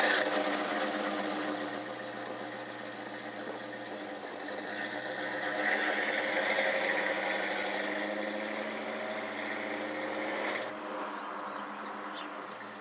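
An engine catches and runs steadily, swelling louder and a little higher around the middle as it is revved, then cuts off suddenly about two seconds before the end.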